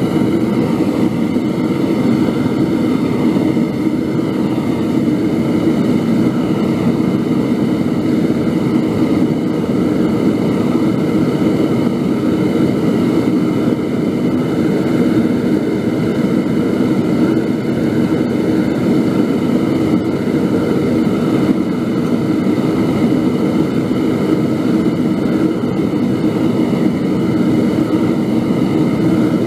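Propane-fired foundry furnace burner running with a loud, steady rushing noise.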